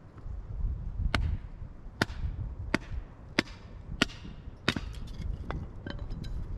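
Small hatchet chopping and splitting firewood: six sharp strikes about two-thirds of a second apart, some with a brief ringing tail, then lighter knocks near the end.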